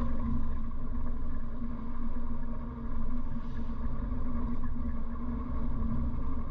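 1957 Morris Minor's 948 cc four-cylinder engine running steadily on the move, heard inside the cabin along with low road rumble. The engine note drops briefly nearly three seconds in, then picks up again.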